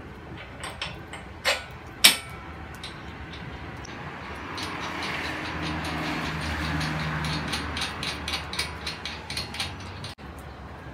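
Metal clanks and clinks from a bolt and nut being fitted through a steel bracket on a galvanised steel pipe frame, with a sharp clank about two seconds in and a run of quick light clicks near the end as the nut is worked onto the bolt.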